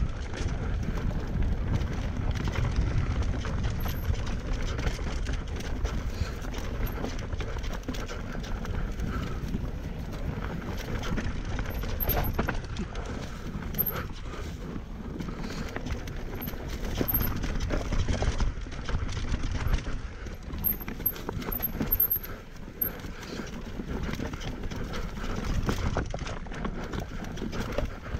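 Mountain bike being ridden over a rough trail: a steady rush of tyre and wind noise with frequent clattering knocks and rattles from the bike.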